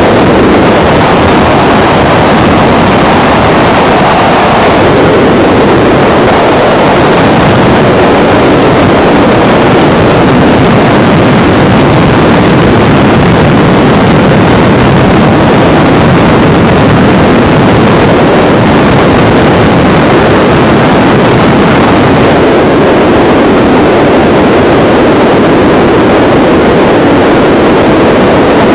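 Helicopter in flight heard from aboard: a loud, steady rush of rotor and engine noise on a camcorder microphone, its tone shifting slightly where the recording cuts about three-quarters of the way through.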